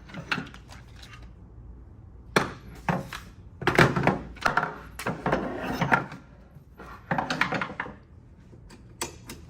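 Caster wheels being fitted into a shower commode chair's legs: clunks, knocks and rattling in a few spells, loudest in the middle, with a few sharp clicks near the end.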